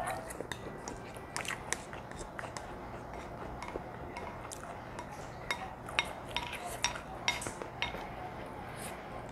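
A spoon clinking and scraping against a ceramic bowl as someone eats soup, in many light, irregular taps.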